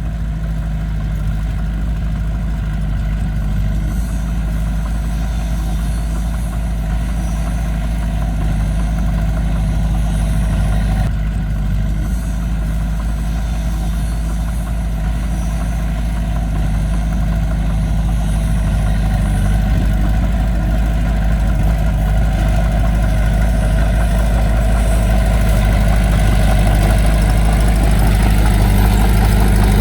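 Diesel engine of heavy earthmoving equipment running steadily with a deep drone, growing gradually louder toward the end.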